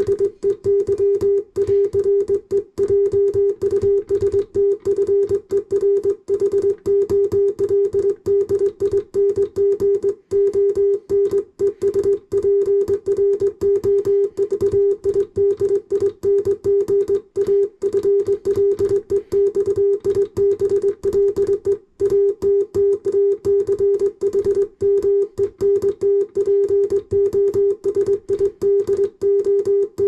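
Morse code sidetone keyed by hand on a straight key: one steady beep, keyed on and off rapidly in dots and dashes, sending a plain-language message at speed.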